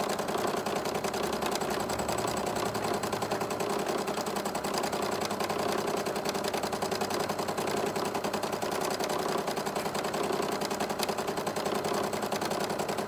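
Domestic sewing machine running continuously, its needle stitching fast and evenly as the fabric is guided by hand in free-motion stitching.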